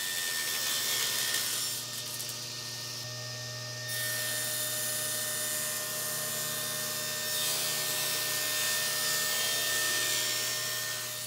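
Table saw running steadily, its blade tilted to 45 degrees and ripping bevelled miter cuts through plywood. A steady motor hum sits under the hiss of the cut, which grows louder and softer as the work is fed through.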